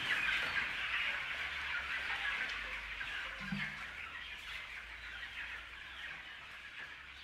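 A crowd of chicks peeping together, a dense, high chorus of overlapping calls that slowly fades out.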